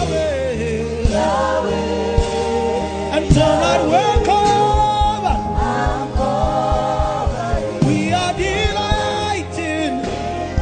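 Gospel worship music: voices singing long, wavering held notes over a band with a steady beat.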